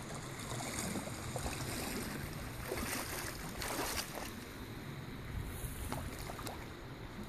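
Shallow creek water running and lapping, with wind rumbling on the microphone and a few short, sharp sounds over it.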